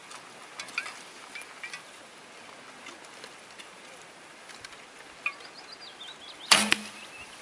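Barebow recurve bow shot: the string is released from full draw with one sharp snap about six and a half seconds in, followed a quarter of a second later by a smaller knock.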